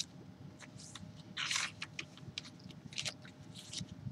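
Paper pages and tags of a handmade junk journal rustling as they are turned and handled. One louder swish comes about a second and a half in, then softer rustles and light taps.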